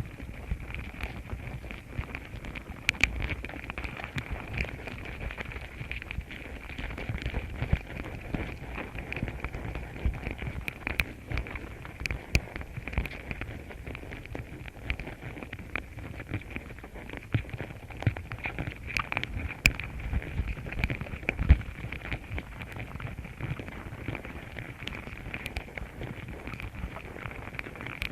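Outdoor ambience: a steady high-pitched drone runs throughout, with many scattered small clicks and crackles over a low rumble.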